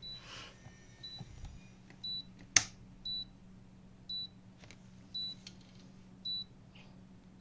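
Deerma DEM-F628S humidifier beeping: a short high beep about once a second while the unit refuses to switch on, the symptom of a failing power-supply board. One sharp click is heard between beeps.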